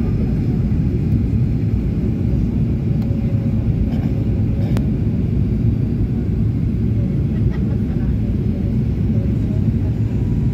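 Airliner cabin noise on the approach to landing: a steady low rumble of the jet engines and the airflow past the fuselage, heard from inside the cabin.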